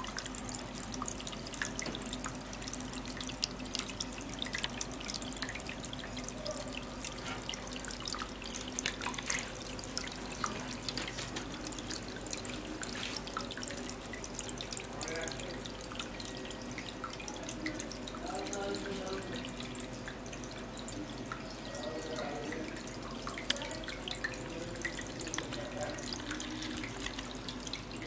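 Water of a tabletop decorative waterfall fountain running down its rock face and splashing into the small pool below: a steady trickle, flecked with drips.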